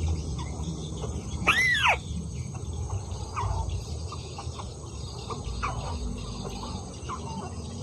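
Bird calls: one loud call that rises and falls in an arch about a second and a half in, then several short, faint calls that slide downward, over a steady low rumble.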